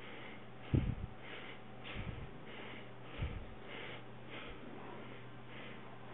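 A baby's soft snuffly breathing right against the microphone, a sniffing noise about twice a second, with three dull bumps from the phone being handled, the loudest about a second in.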